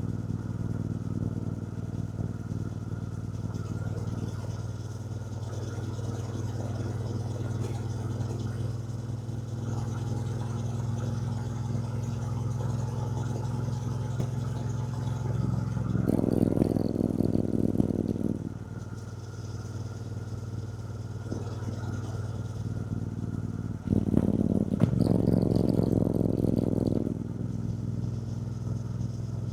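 Triumph Bonneville T120's parallel-twin engine running steadily while riding, growing louder twice for about two to three seconds each, just past the middle and near the end.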